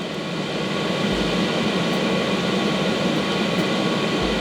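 Espar Airtronic diesel air heater running on the bench: a steady rushing hum from its blower and burner, with faint constant fan tones.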